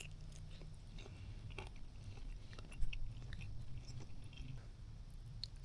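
A person chewing a bite of casing wiener close to the microphone, with small wet clicks and crunches of the mouth.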